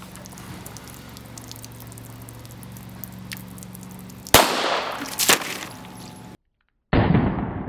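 FN 1910/22 pistol firing 9 mm short (.380 ACP): two sharp shots about a second apart. After a short break, another loud report that dies away over about two seconds.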